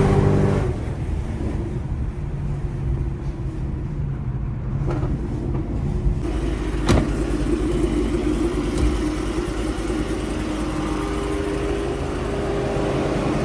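Pontiac G8 GT's 6.2-litre LS3 V8 coming off a loud rev in the first second, then running steadily at cruise with a low drone. A single sharp click about seven seconds in.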